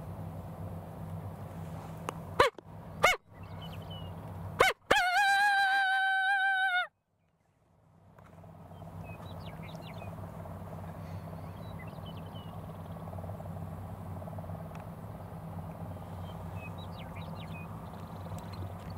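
Coyote vocals blown on a mouth diaphragm call to draw coyotes in: two short yelps a moment apart, a sharp third, then a long howl held on one steady pitch for about two seconds that cuts off suddenly.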